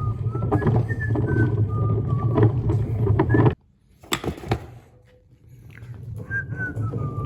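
Rolling tool cart being moved: its wheels rumble with a wavering squeak. The sound cuts off suddenly about halfway through, a single knock follows, and the rumble and squeak build up again near the end.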